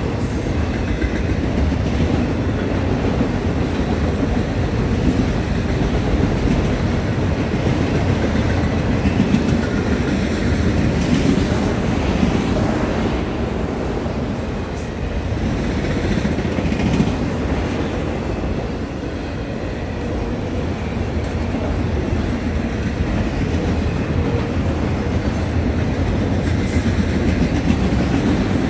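Freight train of autorack cars passing at speed through a grade crossing: a steady, loud rumble of steel wheels on the rails, dipping slightly in loudness about halfway through.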